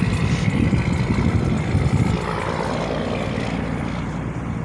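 Low, uneven rumble of a car heard from inside its cabin: engine, road and wind noise. It eases slightly about halfway through.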